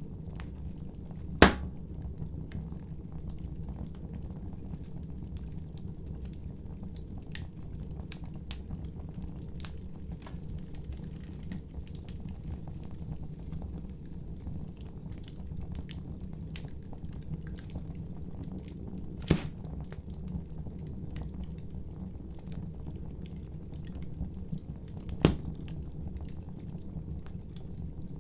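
Campfire burning: a steady low rumble of flames with scattered small crackles and three sharp loud pops, the first about a second and a half in and the other two in the last third.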